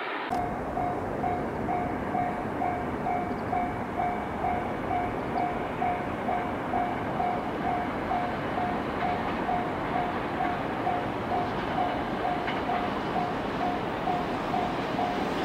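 A railway level-crossing bell ringing steadily at about two and a half strokes a second, over the rumble of an approaching electric train that grows louder toward the end.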